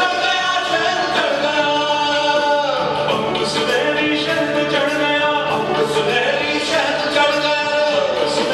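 Indian fusion rock band playing live, with a sung vocal line of long held notes that slide between pitches over a steady low accompaniment.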